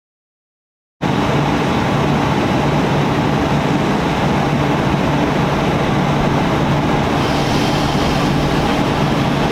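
Steady hum and rumble of a V-set double-deck interurban electric train, with a constant low droning tone; it starts abruptly about a second in.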